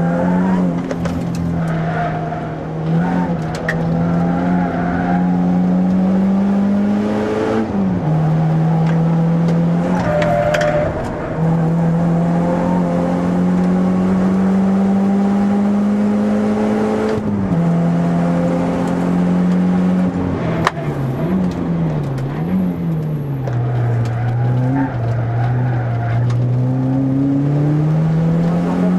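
Renault Clio RS2's 2.0-litre four-cylinder engine heard from inside the cabin under hard driving on track. The engine note climbs steadily through each gear, drops sharply at upshifts about eight and seventeen seconds in, gives a few quick rev blips a little past twenty seconds, then runs low before pulling up again near the end.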